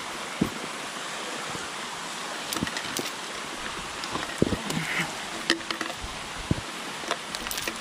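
A rushing mountain stream as a steady hiss, with scattered sharp knocks and clinks of boots and a fixed chain on wet rock as a hiker climbs down a slippery slab.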